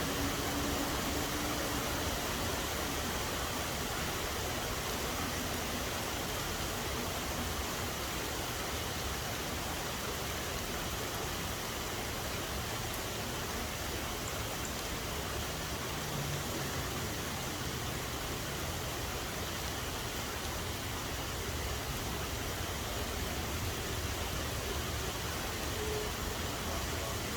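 Steady rain falling, an even hiss without distinct drops or other events.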